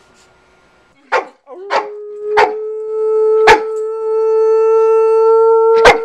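A dog barking sharply about five times, the barks spread out, over a steady high tone that sets in about a second and a half in and holds without a break.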